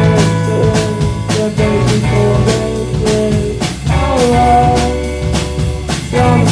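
A band playing: a drum kit keeps a steady beat under a held, bending melodic lead line.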